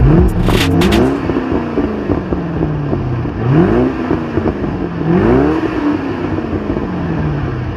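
Shelby-badged 2005–2009 Ford Mustang V8 exhaust, revved in place between 2,000 and 4,000 rpm. There are about four throttle blips, each rising in pitch and falling back to a rumbling idle.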